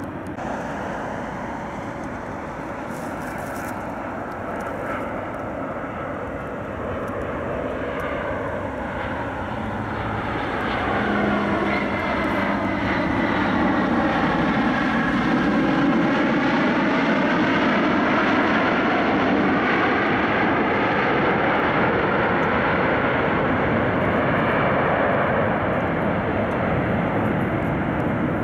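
Jet engines of a Southwest Boeing 737 rolling down the runway past the listener. The noise builds over several seconds, sweeps as the plane passes, and then holds steady and loud as it moves away along the runway.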